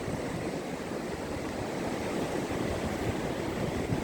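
Ocean surf breaking along the beach, a steady rushing wash of water.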